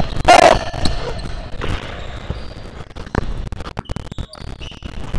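Basketball bouncing on a hardwood gym floor, with irregular thuds and players' footsteps, and a brief shout just after the start.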